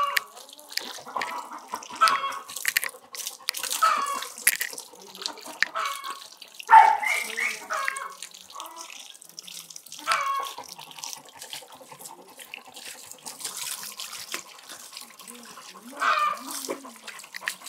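Water from a garden hose spraying onto a Labrador's coat and splashing on the wet concrete floor. Short pitched calls break in now and then, the loudest about seven seconds in.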